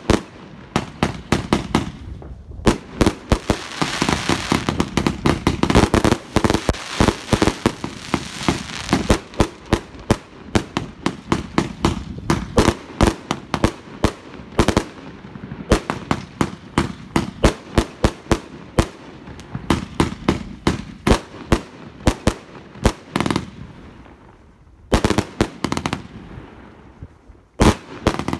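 Aerial fireworks going off shot after shot: a rapid string of sharp bangs, with a dense stretch of crackling a few seconds in and a short lull near the end before the bangs resume.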